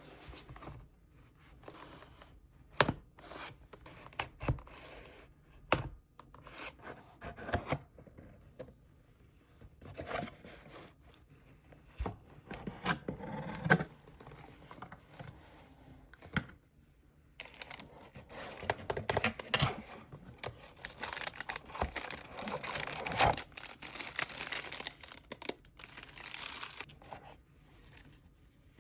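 Packaging of a keyboard unboxing being handled and opened: tearing and crinkling of wrap and paper, with scattered sharp taps and knocks of the box. Near the end comes a long, denser stretch of crinkling.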